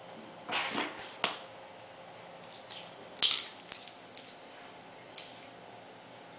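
Yorkshire terrier puppy scrambling and playing with toys on a tile floor: scattered scuffs and clicks of claws and toys, the loudest a short sharp scrape a little after three seconds in.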